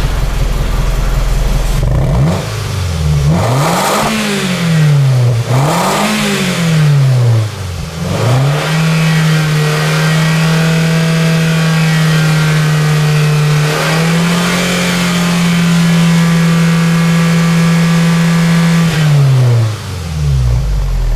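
Toyota Isis exhaust through a Kakimoto Kai hyper GT box Rev. aftermarket muffler: the engine is revved up and down twice from idle, blipped once more, then held at a steady raised speed for about ten seconds before it drops back to idle near the end.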